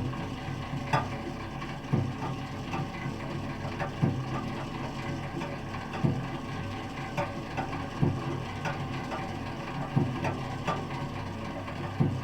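Clockwork movement ticking inside a lidded biscuit tin, heard through a contact mic taped to the lid: a sharp tick about once a second with fainter ticks between, over a steady low hum.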